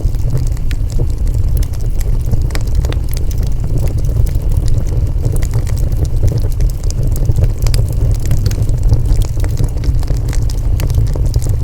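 Wood fire burning, with a steady low rumble under frequent sharp crackles and pops scattered irregularly through the whole stretch.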